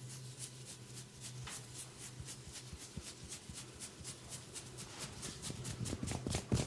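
Massage hands striking the body in a fast even rhythm, about five or six light slaps or taps a second, getting louder near the end, over a low steady hum.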